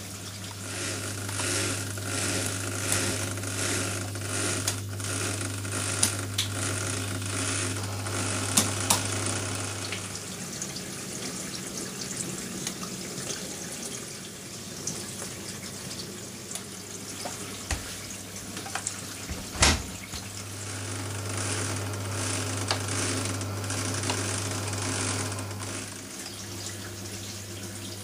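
Hoover Nextra washing machine filling with water at the start of its cycle: water hissing into the drum with scattered clicks and a steady low hum. The hum stops about ten seconds in and comes back about twenty seconds in, just after a sharp click.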